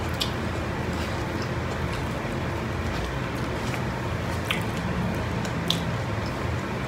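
Eating with the mouth, chewing, with a few small clicks, over a steady low hum.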